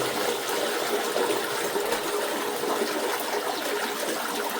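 Toilet flushing and its cistern refilling through a newly replaced fill valve. The water rushes steadily, with a faint steady tone under it.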